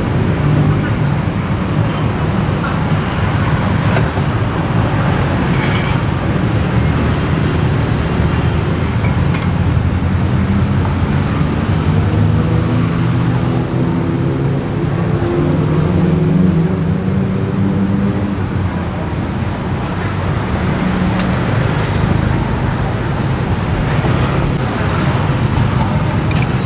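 Steady road traffic noise from vehicle engines passing close by. About halfway through, one engine's drone rises and falls in pitch as it goes past.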